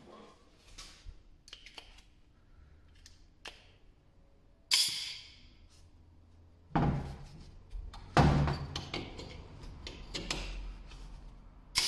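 Compressed air from an air blow gun hissing in about four short blasts into the port of a switchable coolant pump, pressurising it to push the diverter shield up over the impeller. Light clicks and knocks from handling the pump and the metal air fitting come in between.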